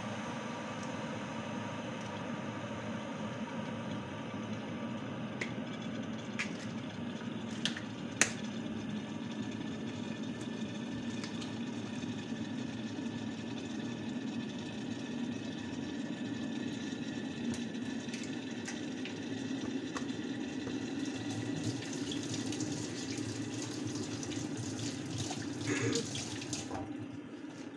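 Eggs being cracked and separated by hand, with a few sharp shell taps about six to eight seconds in, over a steady hum. Near the end a water tap runs for several seconds and is shut off suddenly.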